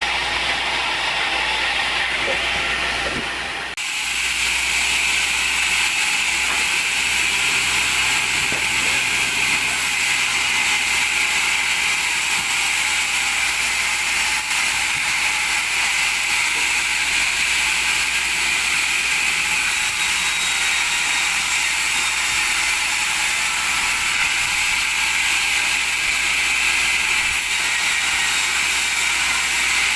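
Sawmill saw running and cutting through wood: a loud, steady, hissing mechanical noise, with an abrupt change about four seconds in.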